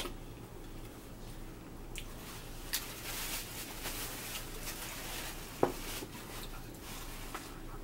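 Paper napkin rustling and crinkling as hands are wiped with it, with a single sharp click a little past the middle.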